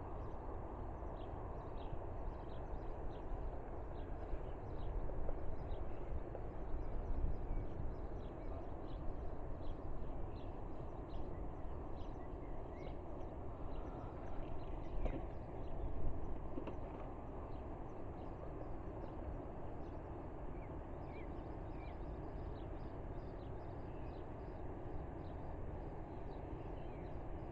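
Small birds chirping over and over, short high calls scattered through, against a steady low rushing noise.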